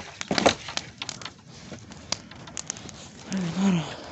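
Large wood bonfire crackling, with irregular sharp snaps and pops and a louder knock about half a second in. A short two-part voice sound from a person comes near the end.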